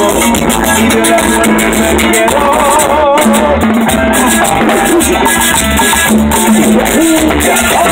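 Live band playing loud, steady dance music: electric bass and drum kit with timbales, and a fast rattling percussion keeping time on top.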